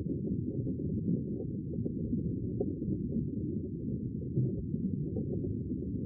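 Steady, muffled low rumble of underwater ocean ambience, with nothing heard above the low range.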